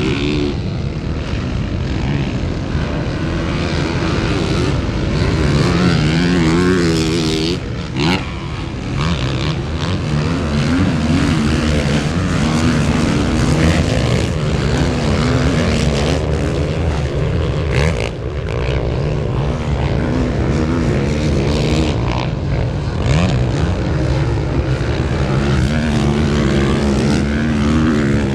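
Dirt bike engines racing, revving up and down so the pitch keeps rising and falling.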